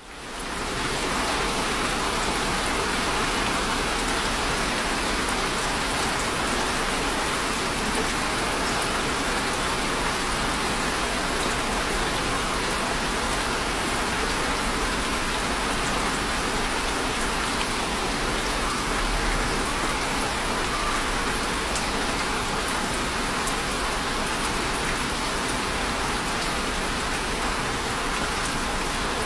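Steady rain falling, an even dense hiss with no thunder, fading in over the first second.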